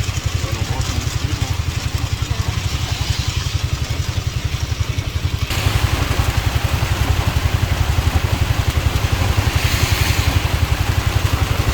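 A small engine idling with a steady low throb, under a hiss of rain that grows louder about five and a half seconds in.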